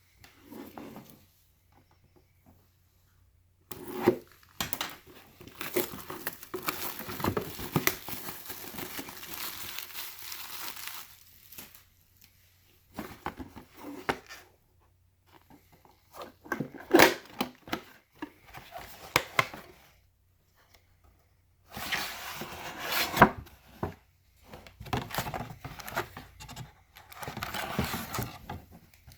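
A trading card pack's wrapper being torn open and crinkled by hand, with the cards inside being handled. A long stretch of crinkling and tearing, a few sharper handling clicks and rustles in the middle, and another burst of crinkling near the end.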